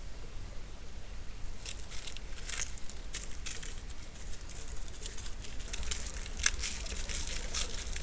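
Dry leaf litter rustling and crackling in irregular bursts, like a small animal moving and foraging through it; it starts about two seconds in and grows busier toward the end, with one sharper crackle.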